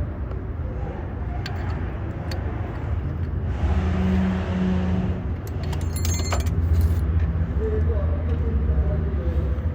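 A vehicle engine running with a steady low rumble, and a brief cluster of light metallic clinks about six seconds in.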